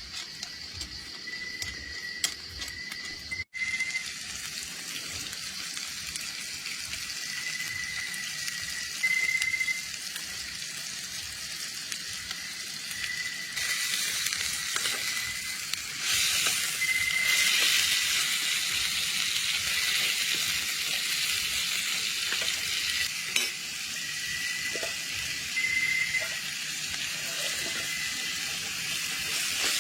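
Chopped meat and spices frying in a pan, a steady sizzle that grows louder about halfway through.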